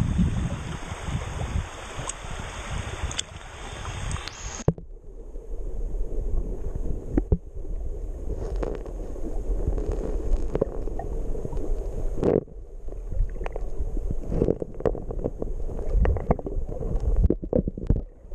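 Brook water rushing, then about five seconds in the sound turns muffled as the microphone goes underwater: a low rumble of current with scattered clicks and knocks of pebbles as hands dig gravel out of a crevice in the streambed.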